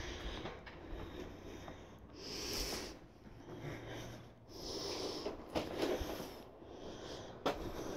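A person breathing close to the microphone, in slow noisy swells, with a few faint clicks and rustles of movement.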